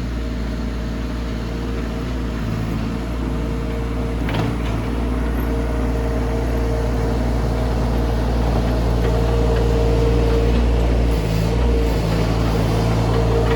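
Mini excavator's diesel engine running steadily under work, with its pitch and load shifting a little and a short knock about four seconds in.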